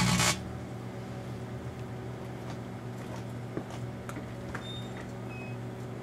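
Daewoo microwave oven running with a steady low hum while the Dermoplast aerosol can inside burns; a loud rushing hiss of the burning spray cuts off abruptly a fraction of a second in, leaving the hum with scattered faint ticks and crackles.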